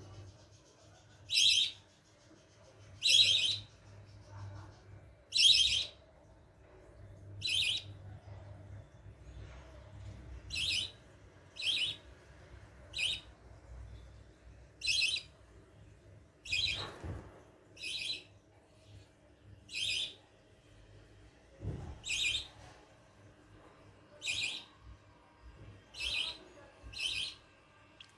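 Young budgerigar giving short, high chirping calls, one every second or two, over and over.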